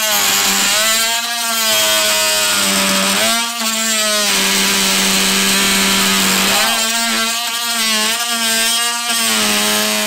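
TackLife PMT01B 12-volt cordless oscillating multi-tool running with a steady buzz as its blade cuts through a thick block of wood trim held in a vise. The pitch shifts briefly twice, about three and a half and six and a half seconds in.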